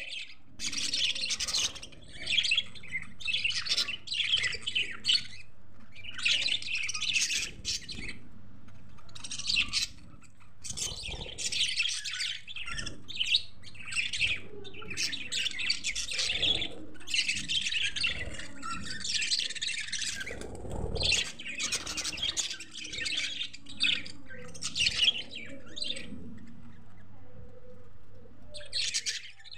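A flock of budgerigars chattering: a dense stream of high, rapid chirps that comes in bursts with short pauses between them.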